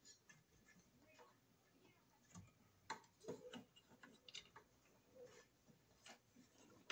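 Faint, scattered small clicks and taps as a wire and screwdriver are worked into a terminal of a metal cartridge fuse disconnect box.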